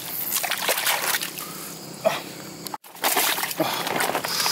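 Shallow muddy water splashing and sloshing as hands grab a struggling fish. The sound drops out for a moment a little before three seconds in, then the splashing resumes.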